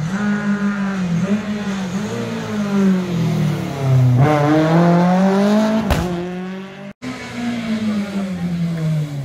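Rally car engines at high revs: a classic Lada rally car accelerates hard through the corner, its engine note climbing and loudest a few seconds in, with a sharp crack about six seconds in. After a brief break, the engine of the next rally car is heard approaching.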